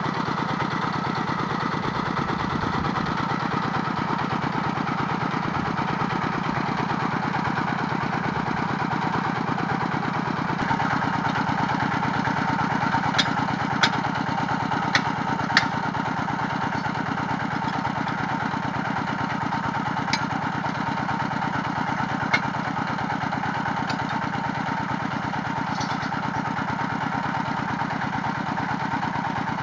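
Engine of a well-drilling rig running steadily. About halfway through come four sharp metallic clanks within a couple of seconds, then two more later.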